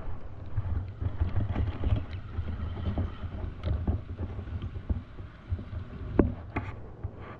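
Wind buffeting the microphone as a low rumble, with scattered knocks and clicks; the sharpest knock comes about six seconds in.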